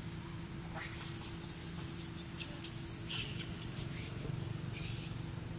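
Baby macaque giving a run of high-pitched squeaks over a few seconds, the first one sliding upward, over a steady low background hum.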